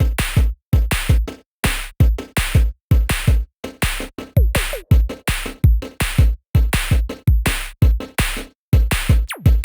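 Electronic cumbia track opening with a choppy drum-machine beat of heavy bass hits cut by short silences, with a falling sweep near the end.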